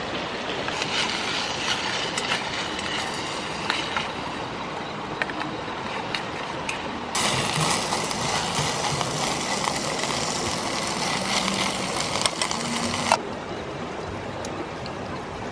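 Meat sizzling in a small pot on a canister gas camping stove as it is stirred, with light clicks of the utensil against the pot. The sizzle turns much louder about seven seconds in and stops abruptly some six seconds later, over a steady rushing hiss.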